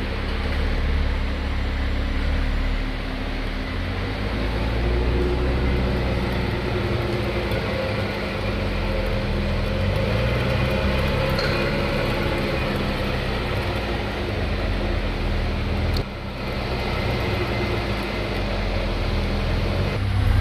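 Car running with a steady droning whine from a noisy differential, the tone holding nearly constant, with a brief break about sixteen seconds in.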